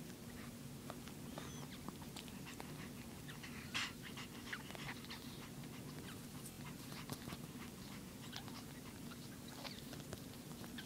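Newborn Chihuahua puppies nursing: many small wet suckling clicks and smacks, with a faint squeak now and then and one louder burst about four seconds in, over a steady low hum.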